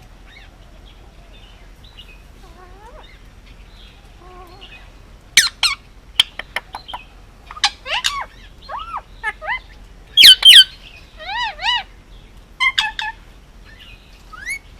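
Male Indian ringneck parakeet calling: faint calls for the first few seconds, then sharp clicks and a string of short, arching chirps, with a loud squawk about ten seconds in.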